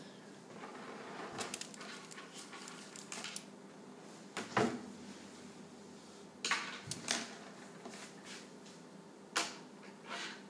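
Scattered light knocks and clicks of painting supplies being handled and set down on a tabletop, about a dozen over ten seconds, over a faint steady hum.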